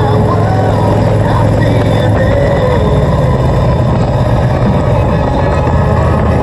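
Touring motorcycle engine running at road speed under heavy wind rush on the microphone; the engine note rises a little about three seconds in.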